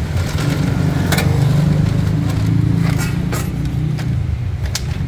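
Steady low rumble of street traffic, with a few short sharp scrapes and clinks over it.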